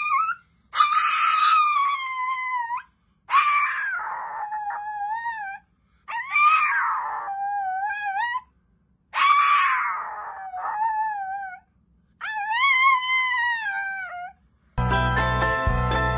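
Small dog howling: five long howls of about two seconds each, each starting high and sliding down in pitch, with short pauses between. Music starts near the end.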